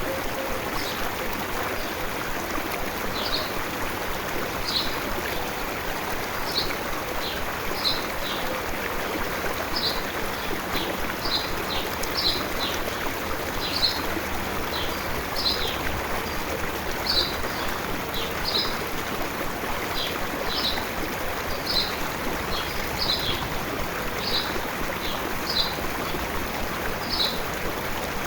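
Steady rush of a flowing stream, with a small bird giving short high chirps over it, about one a second.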